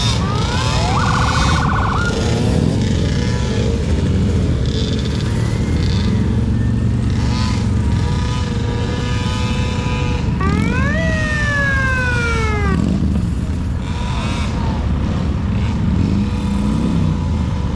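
Rumble of vehicle engines rolling by, with an emergency-vehicle siren giving short rising and falling whoops over it, a warbling blast about a second in and a longer rise and fall about ten seconds in.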